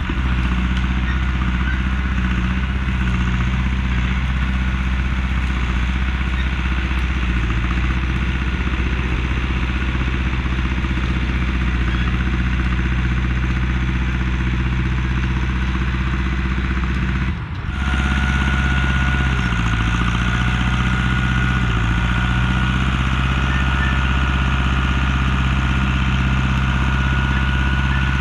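A heavy clearing machine's engine running steadily. After a brief break about two-thirds of the way through, a steady high whine joins it and the engine pitch dips and recovers for a moment.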